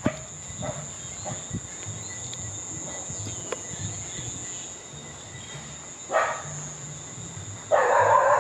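Steady high-pitched insect chorus, crickets or similar, over a low uneven rumble. About six seconds in there is a short noisy burst, and near the end a louder sustained sound joins in.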